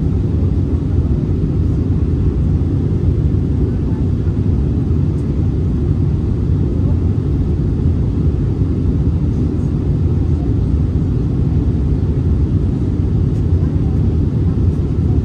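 Steady cabin roar of an Airbus A319-112 in flight on approach, heard from inside the cabin: CFM56 engine and airflow noise, heaviest in the low range and unchanging throughout.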